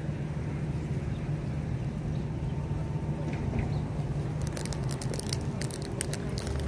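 A steady low rumble, and from about four and a half seconds in, a foil crisp bag crinkling and rustling in the hand.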